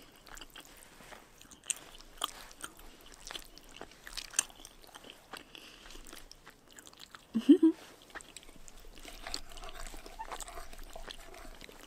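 Close-miked chewing of spicy noodles and chewy rice cakes: soft wet mouth clicks and smacks scattered throughout, with a brief hum of the voice about seven and a half seconds in.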